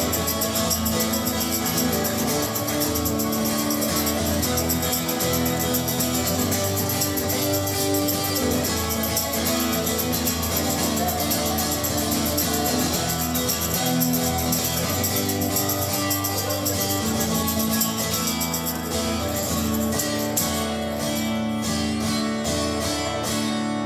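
Live rock band playing an instrumental passage on electric guitar with tambourine, the song's ending. From a little past three-quarters through, the playing turns into evenly spaced accented chord hits, and it starts to die away at the very end.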